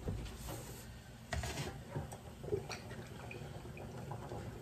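Quiet stovetop kitchen sounds: a pot of potatoes simmering in water, with light clicks and knocks of pans and a bottle being handled, a short rustle about a second and a half in, and olive oil being poured into a pan near the end.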